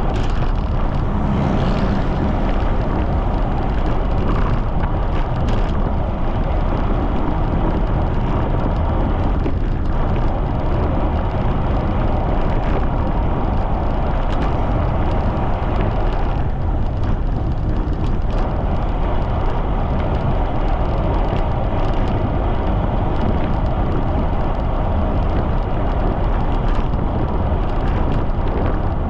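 Steady wind noise rushing over the microphone of a camera riding on a bicycle at speed, with a few brief knocks.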